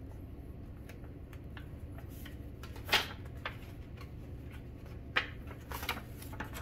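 A few short rustles and crackles of handling, the loudest about three seconds in and a cluster near the end, over a steady low hum.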